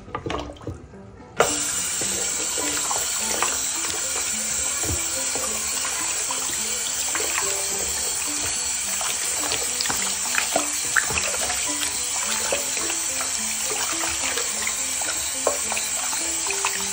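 Kitchen tap water starting suddenly a second or so in, then running steadily into a wooden bowl, with splashing and sloshing as a hand rubs pieces of raw meat under the stream.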